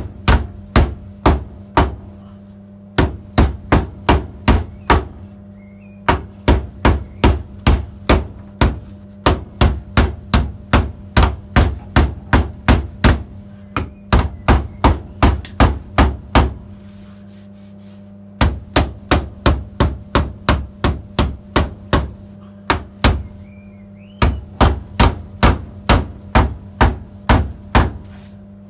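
Hammer striking sheet steel in quick runs of strikes, about three a second, with short pauses between runs: the heel board repair panel on a classic Mini being knocked over and shaped.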